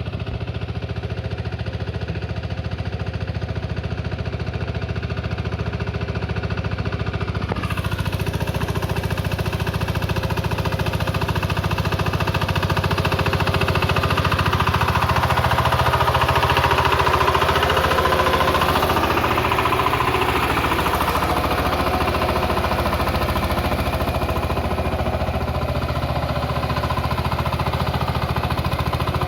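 Single-cylinder diesel engine of a VST Shakti 130 DI power tiller running steadily with its fast, even clatter, working in the field. It grows a little louder around the middle and then eases back.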